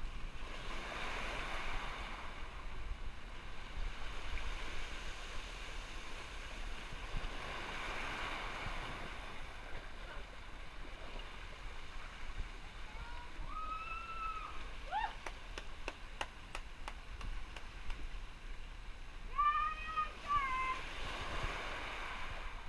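Sea surf washing into a shallow rocky cove, a steady hiss that swells every several seconds as waves surge in. Twice in the second half a person's voice calls out briefly with a rising-and-falling pitch.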